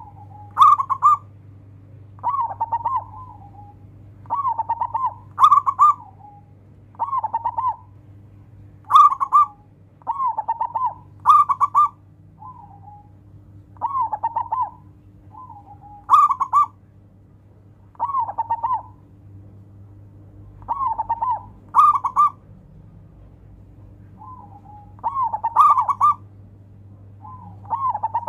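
Zebra dove (local Indonesian perkutut) cooing: a long run of short, purring coo phrases, each under a second, repeated every second or two with brief pauses between groups.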